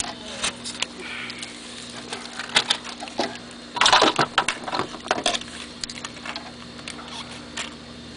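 Small clicks and rustles of hands working a bundle of wires and crimp connectors, with a louder burst of rustling about four seconds in, over a steady low hum.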